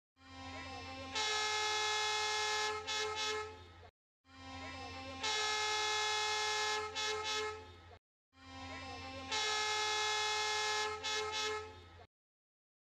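Train horn, the same recording of about four seconds played three times with short gaps. Each time it swells up, holds a long steady blast, then breaks into a few short toots before stopping.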